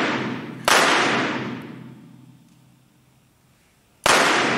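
Two handgun shots from a blank-firing prop pistol, the first about a second in and the second near the end, each ringing out in a long echo that slowly dies away in a large wooden hall. At the start, the echo of a shot fired just before is still fading.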